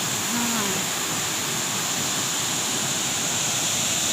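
Waterfall rushing: a steady roar of falling water with no change.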